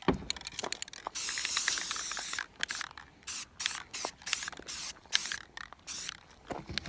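Aerosol spray paint can spraying: one long burst about a second in, then a run of short, quick bursts.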